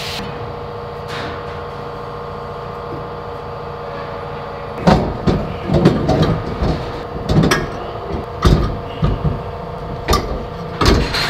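A steady background hum, then from about five seconds in, irregular heavy clunks and knocks: a quick-change rear differential housing being shifted and bumped against the steel tube chassis as it is worked loose by hand.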